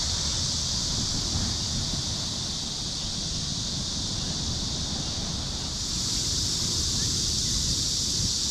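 Steady rush of sea surf and wind on the microphone, with a constant high-pitched hiss over it that grows a little louder about six seconds in.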